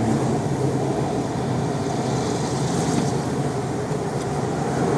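Steady road and engine noise inside a moving car's cabin: a continuous low hum under a rushing noise.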